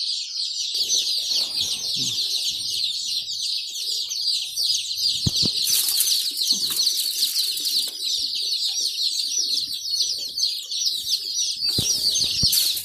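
A large brood of day-old Black Australorp chicks peeping continuously, hundreds of high, short chirps overlapping, with some rustling and a couple of brief knocks.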